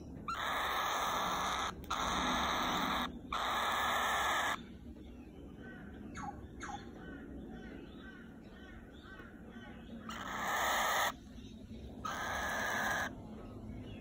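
Young cockatiel chick giving harsh, hiss-like calls: three long ones in quick succession, then two more near the end, with a couple of faint short falling chirps between them.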